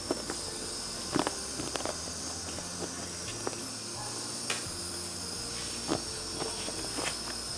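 Scattered crunches and clicks of someone chewing crispy deep-fried battered mushroom (mushroom 65), at irregular intervals over a steady high-pitched hiss.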